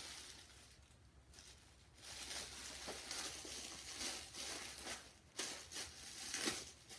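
Plastic wrapping rustling and crinkling as a tightly packed bundle of clothes is pulled open by hand. It is faint at first, then comes in uneven handling rustles with a few sharper crackles in the second half.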